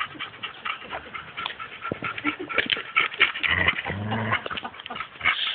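Two dogs playing tug of war over a toy, scuffling and making dog noises, with a short low growl about four seconds in.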